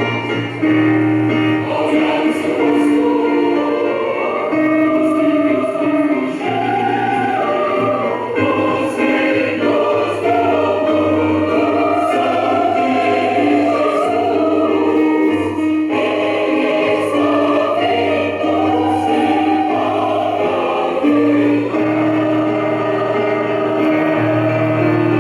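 A mixed choir singing a Christian song in parts, over sustained low accompaniment notes that change every second or two.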